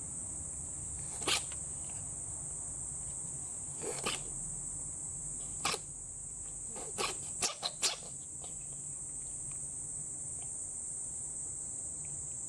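An elderly tabby cat sneezing in a series of short, sharp sneezes, the last three in quick succession, over a steady high-pitched insect chirr.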